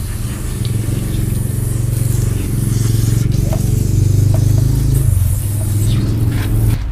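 Water spraying from a garden hose nozzle onto a small wet dog: a steady rushing hiss over a low hum, cutting off abruptly just before the end.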